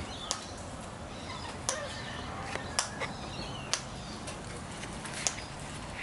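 Sulphur-crested cockatoos feeding on seed, making about five sharp, irregular clicks, with faint bird chirps in the background.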